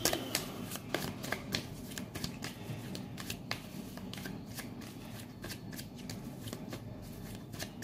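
Tarot cards being shuffled by hand: a continuous run of irregular quick card flicks and slaps.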